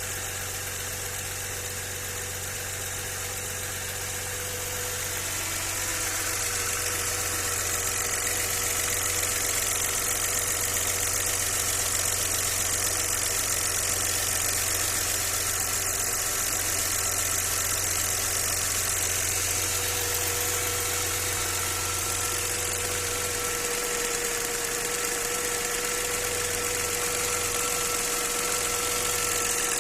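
Audi 100 C4's 2.6-litre V6 engine running steadily at idle, with a steady tone over it. The owner describes this engine as knocking in both cylinder heads and puts it down to the hydraulic lifters, spun bearings or a connecting rod.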